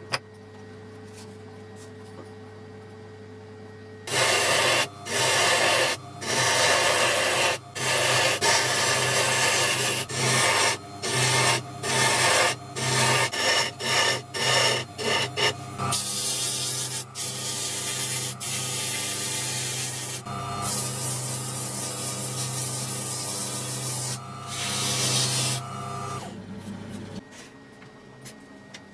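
Proxxon DB 250 mini wood lathe humming as it spins a zebrawood handle, with abrasive rubbing against the turning wood. A few seconds in the rubbing starts in short on-off strokes, then runs continuously for about ten seconds. It stops near the end, and the lathe motor stops with it.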